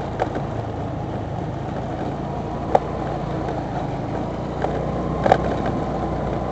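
A motorbike runs along a rough road with a steady engine hum and road noise, picked up by a camera mounted on the bike. A few short, sharp knocks come through as it jolts over the bumps.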